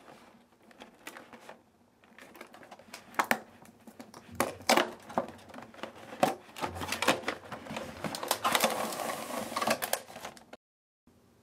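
A cardboard candy-kit box being opened by hand: a run of sharp taps and clicks as the flaps and tabs are worked, then a longer scraping rustle as the clear plastic tray inside is drawn out. The sound cuts off suddenly near the end.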